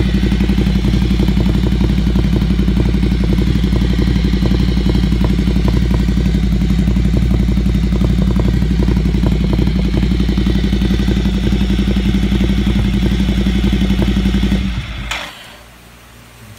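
An engine running steadily at one constant speed, with a low, even pulse, then stopping abruptly about fifteen seconds in.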